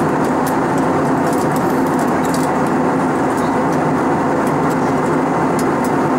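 Steady cabin roar inside an Airbus A320-232 in flight, the mix of its IAE V2500 turbofan engines and airflow over the fuselage, with a faint hum under it and a few faint ticks.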